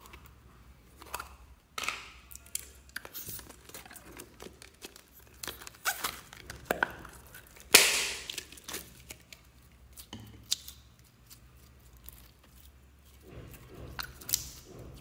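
Clear glitter slime squeezed out of a plastic tube and handled over a bowl of foam-bead slime: a run of irregular sticky crackles and pops, the loudest about eight seconds in.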